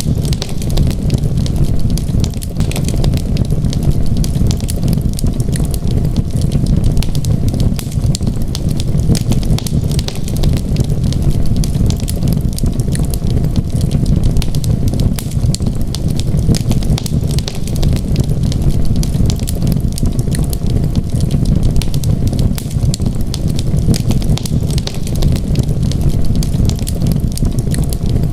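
Wood fire burning in a fireplace, a steady run of dense small crackles and pops over a low, even rumble of flames.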